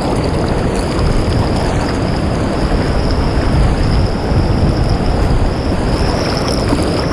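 Steady loud rush of fast-flowing glacial stream water and waterfall close by, an even wash of noise without breaks.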